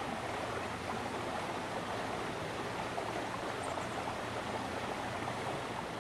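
A steady, even rushing noise with no separate events, like outdoor ambient wash.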